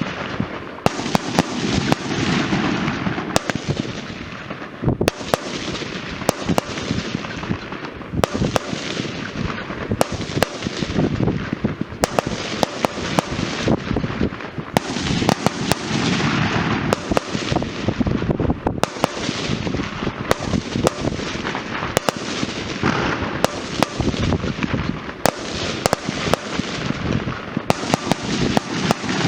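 Funke fireworks going off: a dense run of sharp bangs and cracks over steady crackling, swelling and easing every few seconds.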